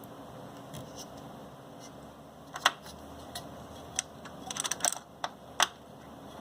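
A run of small, sharp clicks and taps of hard computer parts being handled during a CPU and cooler installation, starting about two and a half seconds in and bunching together near the end, over a low steady hum.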